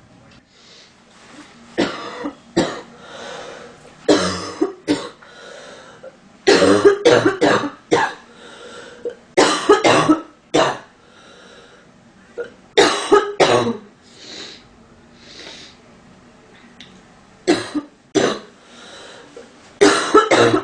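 A woman with a stuffy nose coughing in a series of short fits a few seconds apart, each of one to a few harsh coughs, with breathing between the fits.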